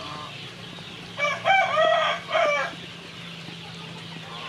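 A rooster crowing once, one long call lasting about a second and a half and starting about a second in.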